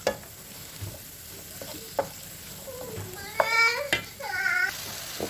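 Chicken and vegetables frying in a pot with a steady light sizzle, while a spoon stirs and knocks against the pot a few times. A brief high voice is heard twice, about three and a half seconds in.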